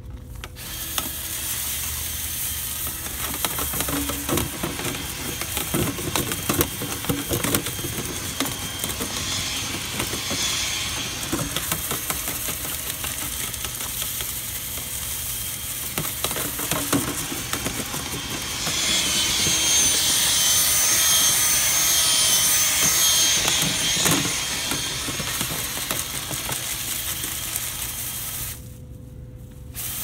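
Power drill spinning a dryer-vent cleaning rod inside a duct clogged with lint and acorns, the rod rattling and scraping against the vent and debris. The drill's whine gets louder and higher for several seconds about two-thirds through, and it stops briefly near the end.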